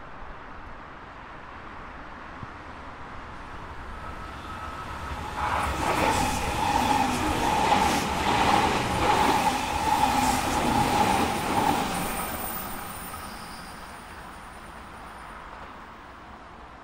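JR Kyushu 883 series 'Sonic' limited express electric train passing at speed: a rising rumble, wheels clicking over rail joints with a steady high whine while it goes by, then fading as it runs away.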